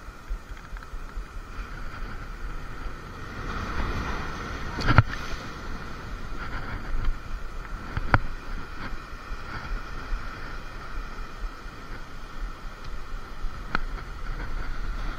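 Steady wind and sea noise with a faint constant hum. It is broken by a few sharp knocks about five, eight and fourteen seconds in.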